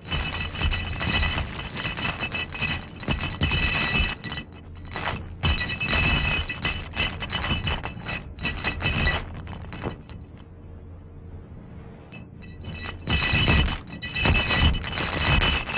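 Haunted-house sound effect of a clinking, jangling rattle with a ringing, metallic or glassy edge, in two loud spells with a quieter stretch between them.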